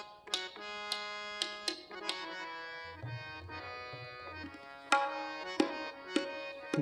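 Harmonium holding notes while a tabla is struck in scattered single strokes at uneven gaps, with a few low bass-drum tones from the bayan about halfway: the players warming up before the bhajan starts.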